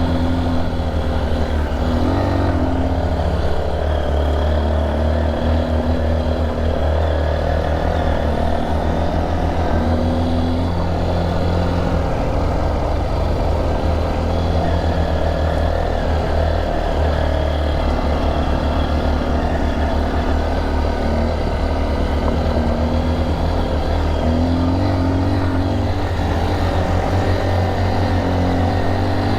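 Single-cylinder engine of a Honda XR trail motorcycle running steadily while riding, with small shifts in pitch about two seconds in and again near the end.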